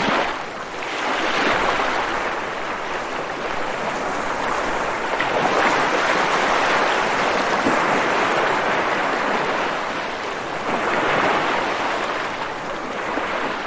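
Rushing water, an even noise that swells and eases in slow surges every few seconds.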